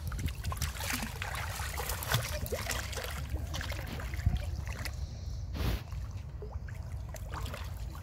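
Pond water splashing, sloshing and trickling as young macaques paddle and scramble about, with many small splashes and one sharper splash late on, over a low steady rumble.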